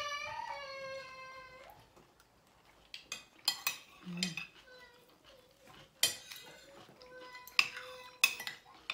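Metal spoon and fork clinking and scraping against a plate while eating, a handful of sharp separate clinks spread out. At the start a high, wavering voice fades out over the first two seconds.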